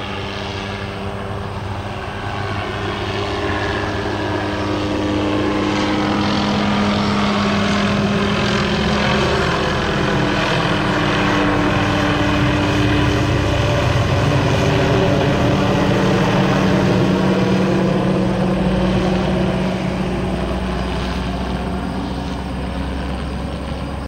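A light helicopter flying overhead, its rotor and engine running steadily. The sound grows louder over the first few seconds and eases off a little near the end as the helicopter moves away.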